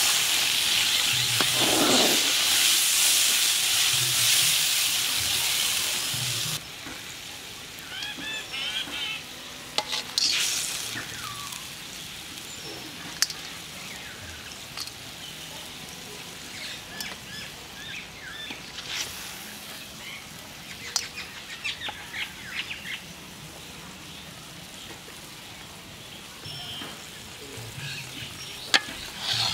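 Water poured into hot oil and spices in a karahi sizzles loudly, then cuts off suddenly about six seconds in. After that the curry is quiet, with birds chirping now and then and a few sharp clicks.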